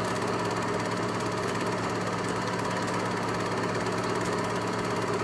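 Film projector running: a steady mechanical whir with a low hum.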